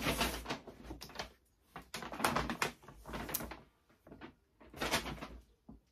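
Paper shopping bags rustling and crinkling as they are picked up and handled, in several bursts.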